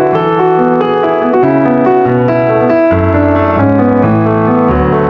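Background piano music: a flowing run of notes over bass notes that change about once a second.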